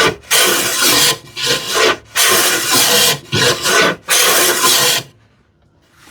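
Hand plane taking about five strokes along the edge of a plywood panel, each a scraping hiss of half a second to a second, stopping about five seconds in.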